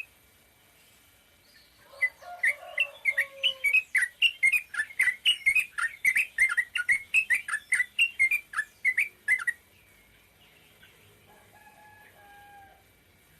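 Yellow-vented bulbul (trucukan) singing a rapid string of short, bubbly notes, about three or four a second. It starts about two seconds in and stops after about seven and a half seconds.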